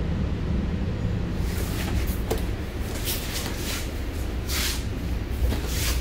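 Steady low rumble of a moving passenger train heard from inside the car, with several short hissing swishes and a sharp click along the way, the loudest swish about four and a half seconds in.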